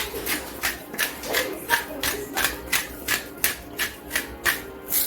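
A salt grinder being twisted by hand to grind pink Himalayan salt, a crunching click about three times a second.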